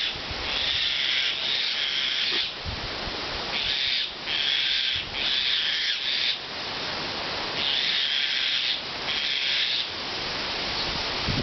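Wind blowing hard, a hissing rustle that swells and drops back in short gusts, with a few low buffets of wind on the microphone.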